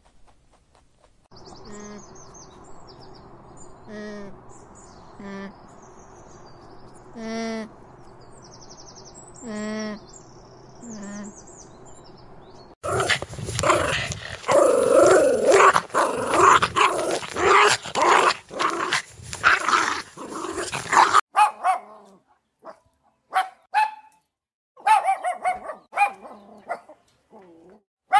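Dogs barking and growling in a few separate stretches. First come single barks spaced a second or two apart, then a loud, dense stretch of barking and growling, then scattered barks near the end.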